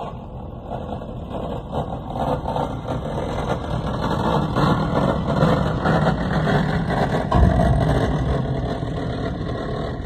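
Case International tractor's engine running as it drives past towing a grain bagger. It grows louder as the tractor comes closest, about seven seconds in, then eases off as it moves away.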